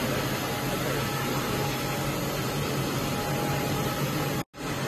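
Steady, even noise of a workshop room, with no distinct event standing out. The sound cuts out completely for an instant near the end.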